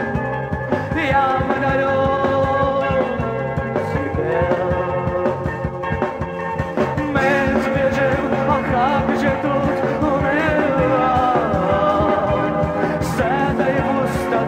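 Alternative rock music: a band track with a steady drum beat under a melodic lead line that bends up and down in pitch.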